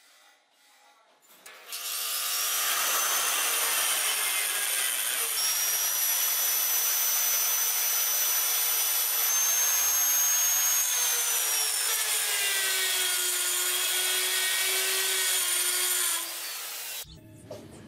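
Handheld rotary tool with an abrasive disc grinding a brass piece held in a vise. The tool starts about two seconds in and runs with a high whine whose pitch shifts up and down as it bears on the metal, then stops near the end.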